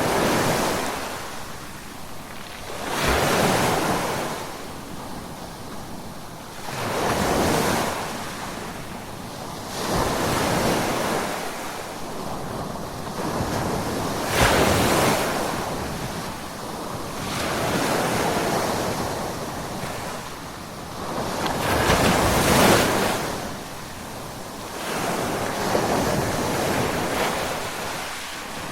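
Ocean waves breaking on a shore, one surge of surf every three to four seconds, each swelling and then washing back, with wind noise on the microphone underneath.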